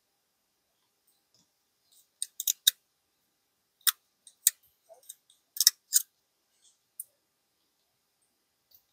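Aluminium foil tape crackling and crinkling as fingers press and smooth it into the action bedding area of a synthetic rifle stock. It comes as a string of short, sharp crackles, most of them between about two and six seconds in.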